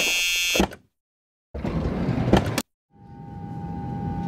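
Added mechanical sound effects for a LEGO mech, cut together with dead silence between them: a short high whir with clicks, then a noisy clattering burst a second and a half in, then a steady machine hum with a single tone that fades in near the end.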